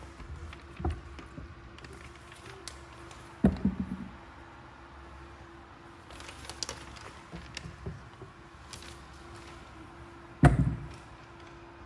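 A few dull thumps and knocks, the loudest near the end, with lighter clicks between them, over a faint steady hum.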